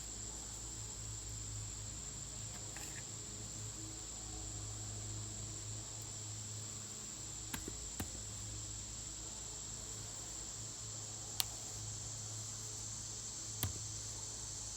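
A steady, high-pitched insect chorus of crickets drones without a break. A few faint clicks or taps come about midway and near the end.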